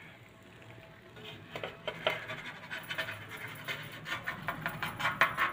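Metal frying pan scraping and tapping against a plate as a cooked omelette is slid out of it: a quick run of short scrapes that start about a second in and grow busier toward the end.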